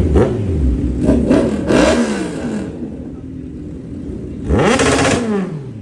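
Kawasaki Z1000's inline-four engine with a remapped ECU, revved in quick throttle blips: several short rises and falls in the first two seconds, then one bigger blip about four and a half seconds in, settling back to idle between them.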